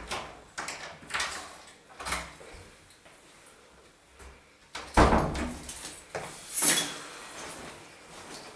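Flat's front door opening and shutting: a few short latch clicks, then a loud thud about five seconds in and a second sharp knock just after.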